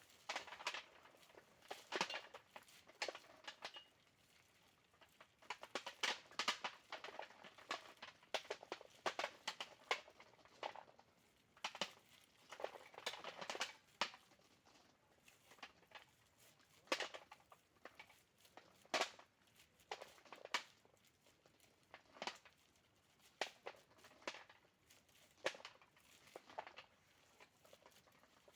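Ripe açaí berries being stripped by hand from their bunch: an irregular run of short rustles and clicks as the berries come off and fall together.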